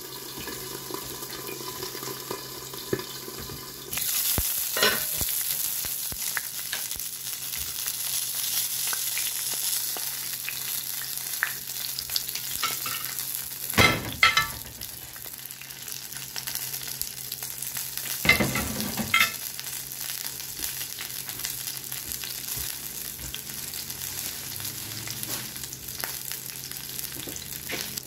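Whole alewives frying in a cast-iron skillet: a steady sizzle that grows louder about four seconds in, with a few metallic clanks.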